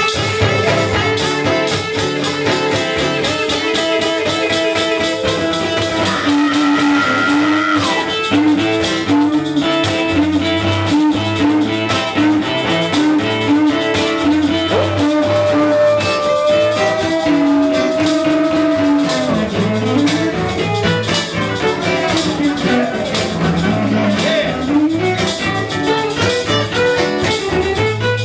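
Music: guitars over a drum kit, with a gliding melody line above a steady beat.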